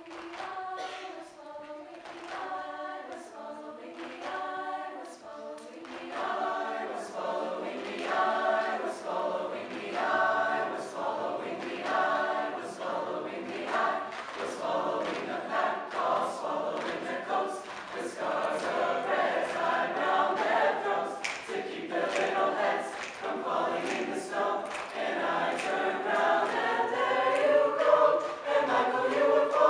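Mixed high-school choir singing a Christmas carol unaccompanied, in sustained chords. It starts soft and swells louder from about six seconds in.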